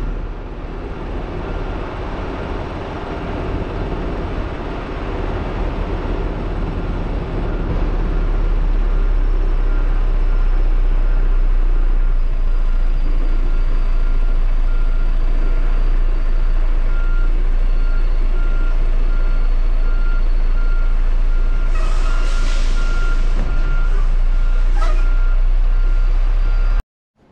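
Semi-truck's diesel engine running while backing up, with a reversing alarm beeping steadily. About 22 seconds in comes a short hiss of air from the air brakes, and a shorter one about three seconds later.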